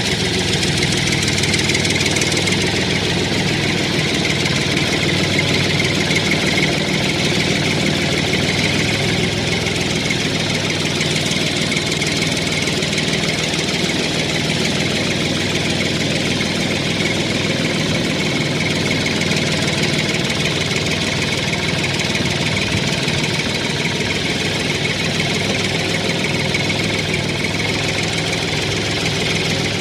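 Engine sound effect of a tractor idling steadily, running unchanged throughout.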